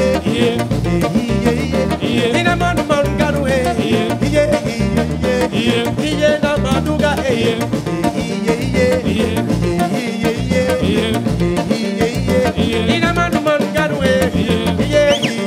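Live band playing upbeat music on electric guitar, bass guitar and drums, with a voice singing over it.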